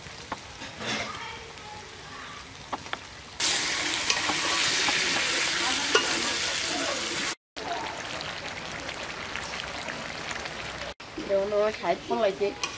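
Chicken pieces frying in masala and oil in a steel karahi, sizzling, with a metal spatula stirring and scraping the pan. The sizzle grows much louder about three seconds in and stays loud for about four seconds.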